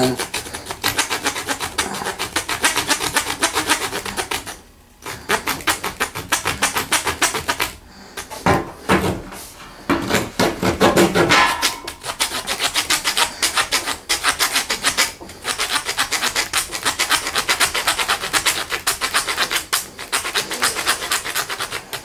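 Leatherman Blast multi-tool's folding saw blade cutting through a wooden board in rapid back-and-forth strokes, a steady rasping that stops briefly about five seconds in.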